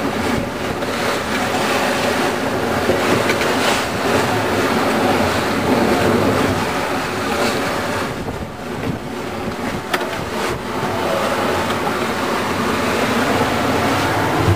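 Sailing trimaran driving hard through heavy seas: a loud, steady rush of water and wind, easing briefly about halfway, with an occasional sharp knock of spray or gear.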